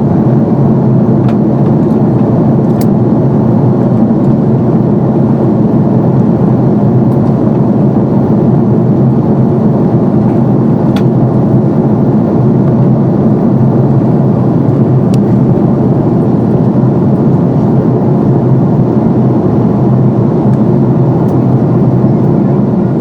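Airbus A330-200 jet engines and rushing air heard inside the passenger cabin as a loud, steady drone, with a few faint ticks.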